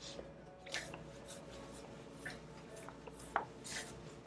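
Whiteboard eraser wiping across a whiteboard in a series of short rubbing strokes, with one sharp knock about three and a half seconds in.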